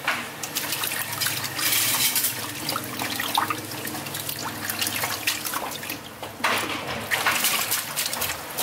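Water splashing and trickling in a stainless steel sink as a bunch of long green stalks is swished through a basin of water and a plastic colander of vegetables drips over it.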